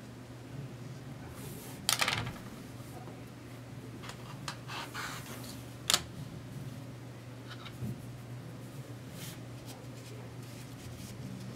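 Plastic goggle outrigger hinges and strap being handled: scattered light clicks and rustles, with a scraping rustle about two seconds in and a sharp plastic click about six seconds in as a hinge is snapped off its strap clip. A steady low hum runs underneath.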